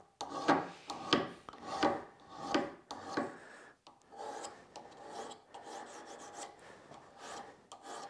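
Diamond file of a Leatherman Wave multi-tool scraping back and forth across the cutting edge of a steel auger bit, putting an edge back on the dulled bit. Distinct strokes about one every two-thirds of a second at first, growing lighter and fainter in the second half.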